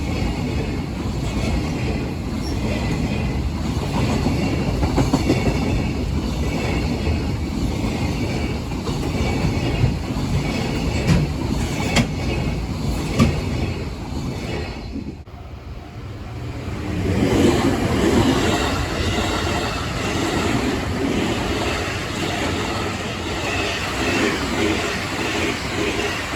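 Train running past at close range, its wheels clattering over the rail joints with a steady rumble and scattered clicks. About fifteen seconds in the sound drops out briefly, then picks up again with a different rattle.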